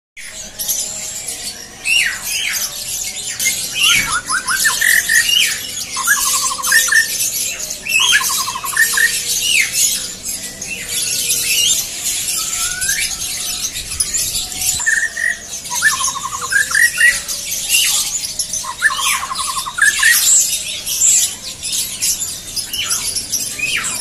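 A caged songbird singing the same short phrase again and again, a few quick rising notes ending in a fast trill, over a dense chorus of many caged birds chirping.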